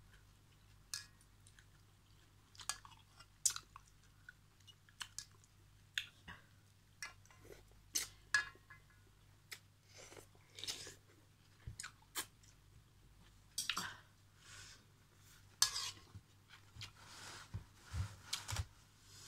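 Close-up chewing of noodles and crunchy vegetables, with many irregular short clicks and wet mouth sounds, and now and then a spoon and fork clinking against the metal wok.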